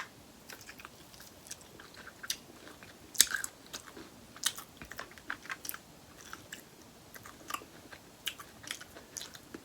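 Close-miked eating of seafood-boil food: a person biting and chewing, with irregular wet clicks and small crunches, the loudest about three and four and a half seconds in.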